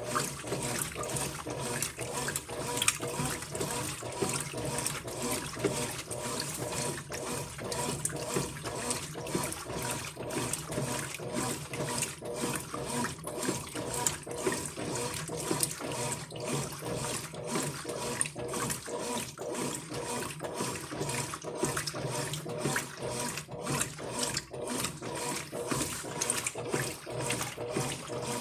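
Brastemp Ative 11 kg washing machine washing a load of towels, water sloshing in the drum in a steady, regular rhythm.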